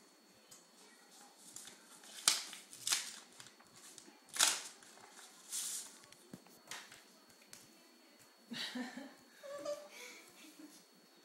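Paper and card being handled and pulled about: a series of short, crisp rustles, the loudest in the first half, as a birthday card is taken out of its envelope.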